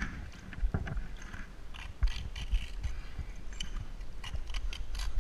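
Gloved hands and a neoprene wetsuit scraping and knocking against sandstone during a climb out of a canyon pothole, with light clinks of a carabiner hanging from the harness. The knocks come irregularly, with a louder one about two seconds in.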